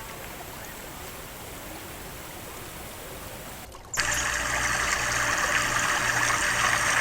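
River water flowing steadily; about four seconds in it cuts abruptly to a much louder, closer rush of water.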